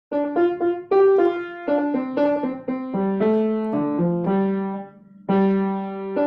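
Piano playing a melody over chords, one note after another with each note fading after it is struck. It breaks off briefly about five seconds in, then plays on.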